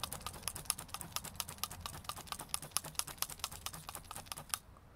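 A handheld needle felting tool stabbing rapidly and repeatedly through wool into a lavender wool sweater, making quick sharp ticks, several a second, that stop near the end. This is the needling that anchors loose wool fibre into a moth hole to mend the knit.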